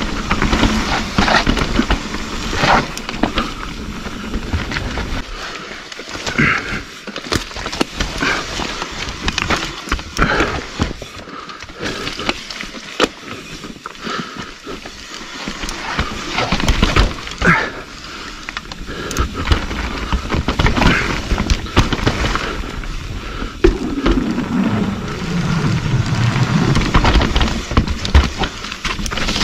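Mountain bike riding down a dirt trail: tyres rolling over dirt and rocks, with the bike clattering and rattling over bumps throughout. A short falling tone comes through near the end.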